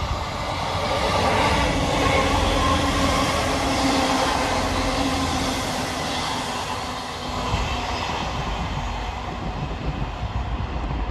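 East Midlands Railway Class 158 diesel multiple unit passing close by with a steady engine drone and rail rumble, loudest in the first half and fading as it runs on away.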